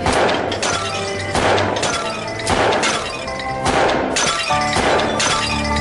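Revolver shots one after another, each with the shatter of a thrown plate breaking in the air, several in a row at uneven spacing, over background music.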